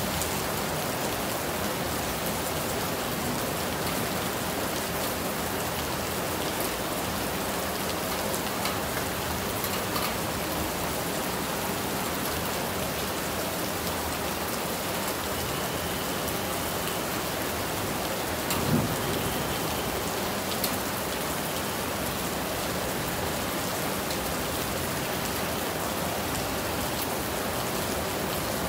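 Steady rain falling, a continuous even hiss with a few sharper drop ticks. A single soft low thump stands out about two-thirds of the way through.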